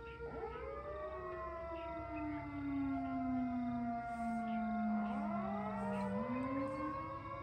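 Several sirens wailing together, their pitches sliding slowly down and then rising again about six seconds in: the iftar siren signalling sunset and the end of the day's Ramadan fast.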